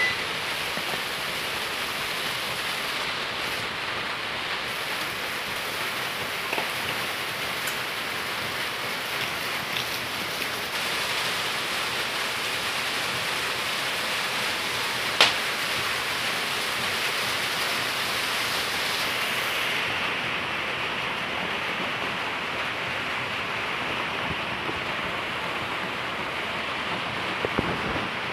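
A steady hiss that gets duller after about twenty seconds, with a sharp click about fifteen seconds in.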